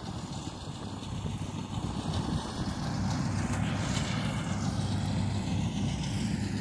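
Gatra GCH 858 combine harvester running in a rice field, a steady engine and machinery drone that grows louder over the first few seconds, then holds.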